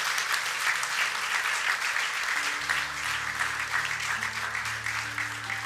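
Congregation applauding, a dense clapping that thins toward the end. Soft sustained low musical notes come in about halfway through under the clapping.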